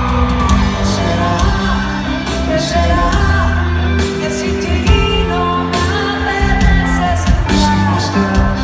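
Live pop music heard from the audience: a man and a woman singing a duet over a live band.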